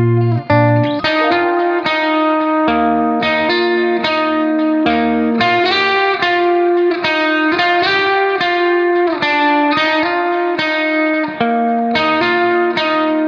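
Background music: a melody of plucked guitar notes over a steady pulse.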